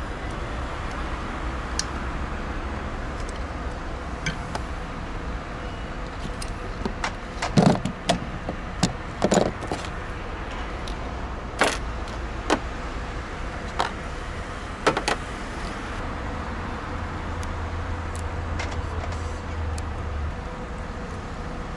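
Light clicks and clinks of small hand tools and cable parts being handled, several sharp ticks scattered through the middle, over steady traffic noise; a low rumble comes in near the end.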